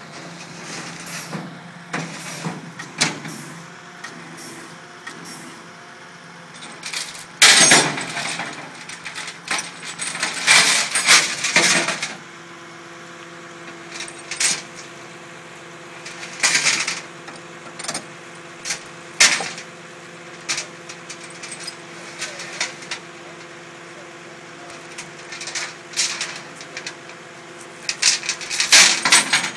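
A tow truck runs with a steady hum while a wrecked car is recovered onto it, against repeated sharp metallic clanks, knocks and scrapes from the recovery work. A second steady tone joins about twelve seconds in.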